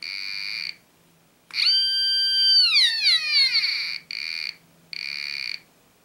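BFO metal detector's speaker tone changing pitch as a smartphone is moved over its search coil, the beat note shifting as the metal in the phone comes near. A short tone comes first, then a longer one that rises, holds steady and glides down, then two short tones near the end.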